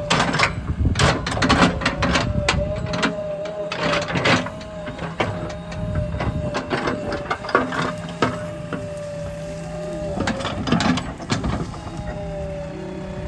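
Backhoe loader working, its engine and hydraulics giving a steady whine, with repeated clanks and scrapes of the bucket against earth and stones.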